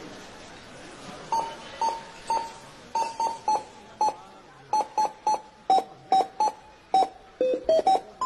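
Supermarket checkout barcode scanner beeping, short beeps at several different pitches picking out a Christmas tune. The beeps begin about a second in and come roughly two a second, with the pitch stepping down and back up near the end.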